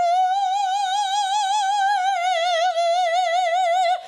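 Female operatic soprano singing a cappella, holding one long high note with even vibrato that cuts off near the end.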